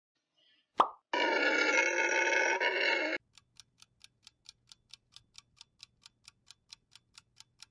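A short swish, then a howler monkey roaring for about two seconds, then a clock ticking steadily at about five ticks a second.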